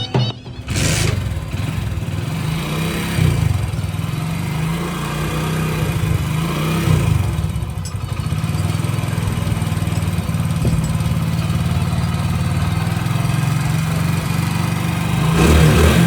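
Motorcycle engine running during a tune-up: its revs rise and fall a few times in the first several seconds, then it idles steadily, a little louder near the end.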